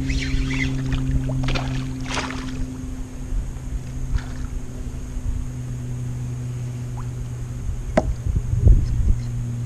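A steady low hum, like a small motor running, with a few brief rustling noises in the first half, a sharp click about eight seconds in and a thump just after.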